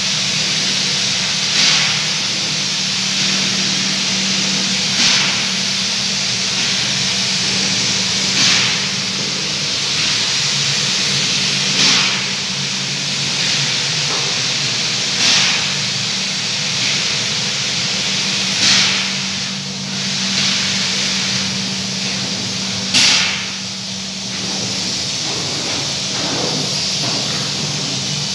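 Fiberglass spray-up equipment running: a steady rush of compressed air over a constant low hum, with a short burst of hiss about every three and a half seconds.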